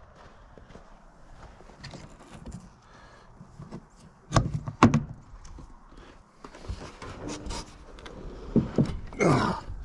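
Thunks and knocks from the hood latches and bodywork of a heavy truck as the rubber hood latch straps are worked loose to open the hood, with footsteps in snow. There are two sharp knocks about halfway through, a few lighter clicks after them, and a louder drawn-out sound near the end.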